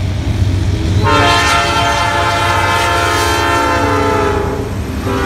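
Norfolk Southern freight locomotive's air horn blowing one long chord starting about a second in, its pitch sagging slightly as the lead engine passes, then a brief second blast near the end. The diesel locomotives' low rumble runs underneath.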